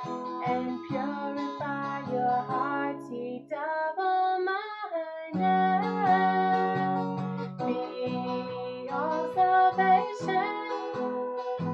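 A woman singing while strumming an acoustic guitar. The guitar drops out for a moment about three and a half seconds in while her voice carries on, then comes back.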